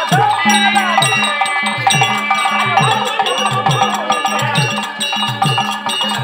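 Therukoothu accompaniment music for dancing: a drum beating low strokes that slide down in pitch, roughly two a second, under a steady drone and a wavering melody line, with jingling percussion on top.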